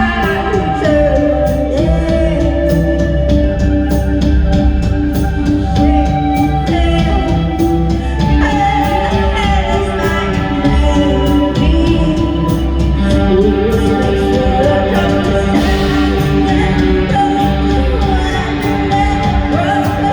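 Live band playing: a singer's voice glides over held guitar and bass notes, with a steady drum beat throughout.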